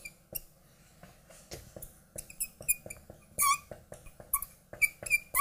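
Marker writing on a glass lightboard: a quick, irregular run of short squeaks and light taps as the strokes are drawn, sparse at first and denser and louder from about two seconds in.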